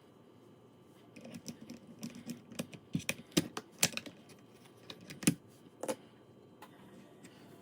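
Keys clacking on a Keychron K2 HE keyboard with Gateron Double-Rail magnetic switches: a dozen or so short, irregular key strokes over a few seconds, a few of them sharper and louder in the middle, stopping about a second before the end.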